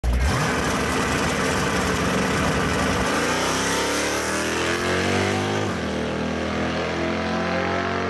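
Naturally aspirated 385 small-block Chevrolet V8 in a Fox-body Mustang launching at wide-open throttle on a drag strip. It is loud from a sudden start, and its engine note slides down in pitch as it passes and pulls away down the track, with a break in the note about six seconds in. A second car in the other lane runs alongside.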